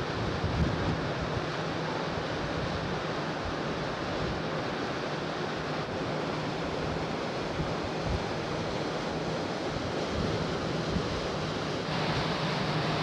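Wind buffeting the microphone and sea water rushing past a moving ferry's hull, over the ship's steady low hum. Near the end the rushing turns brighter and a little louder.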